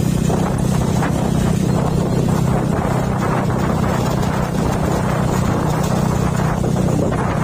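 Vehicle engine running at a steady speed while on the move, with a constant low hum and wind and road noise over it.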